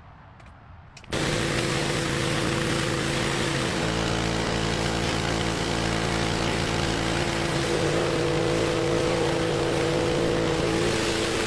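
A motor-driven machine starts abruptly about a second in and runs steadily: a loud even noise carrying a steady two-note hum.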